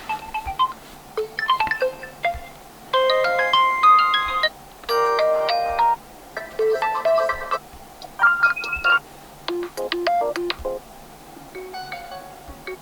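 Realme 11 Pro+ smartphone playing a run of short ringtone snippets one after another. Each is a second or so of electronic melody, with brief pauses between them.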